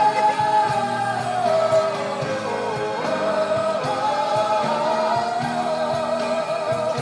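A song with a singing voice over instrumental backing.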